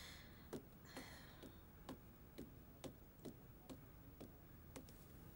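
Faint footsteps of a person walking, evenly spaced at about two steps a second.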